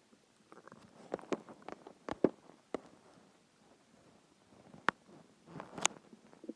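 Hungry stomach making scattered short gurgling pops and clicks, the loudest about two seconds in, with a few more near the end.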